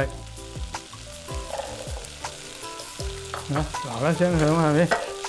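Diced raw taro poured into a hot oiled wok of frying garlic, ginger, dried shrimp and Chinese sausage, sizzling steadily while a wooden spatula stirs and scrapes. A voice speaks over it for a moment near the end.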